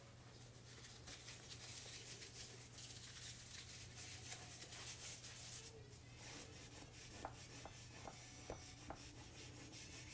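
Faint rustling and rubbing of a paper towel being handled, rolled onto a stick and worked into a bagpipe stock to wipe out excess seasoning, with several light clicks in the second half.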